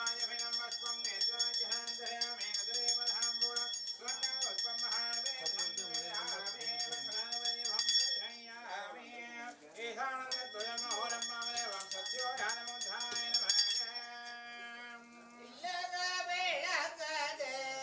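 Brass puja hand bell rung rapidly and continuously over singing. The bell breaks off about 8 s in, rings again from about 10 s, and stops near 14 s, after which a long held note leads into singing.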